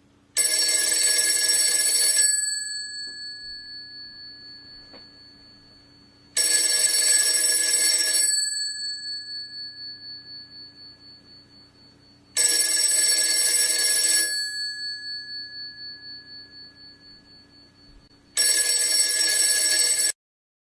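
Telephone bell ringing four times, each ring about two seconds long and six seconds apart, each dying away slowly with a wavering tail. It cuts off abruptly after the fourth ring.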